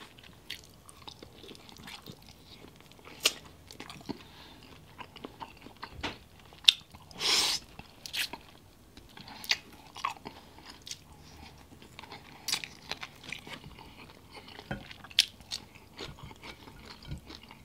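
Close-miked eating of grilled chicken thigh off the bone: chewing, biting and small wet mouth clicks, with one louder, longer mouth noise about seven seconds in.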